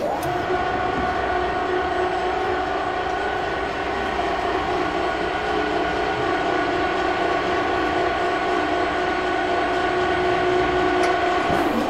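A steady horn-like tone over a low rumble, holding one pitch for about twelve seconds and cutting off abruptly.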